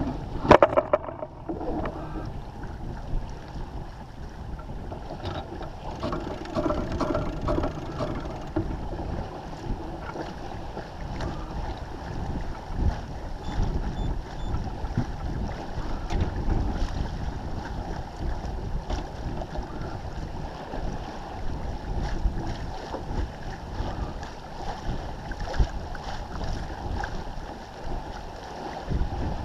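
Water rushing and splashing along the hull of a First 30 sailing yacht moving under sail, with wind buffeting the microphone. A few knocks near the start.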